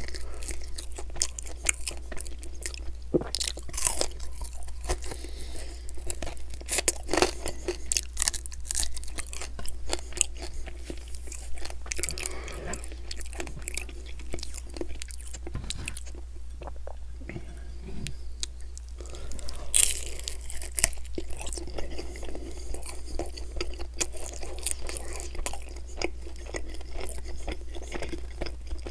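Close-miked chewing and biting of sauced chicken wings, meat pulled off the bone, with irregular wet smacks and crunches.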